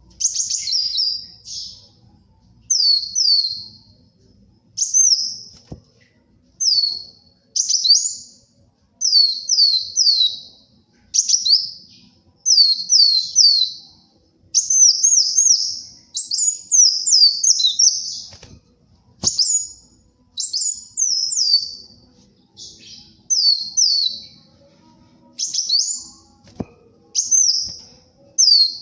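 Kolibri wulung sunbird singing persistently: short, high, thin phrases of quick downward-sweeping notes, mostly in twos to fours, repeated every second or two.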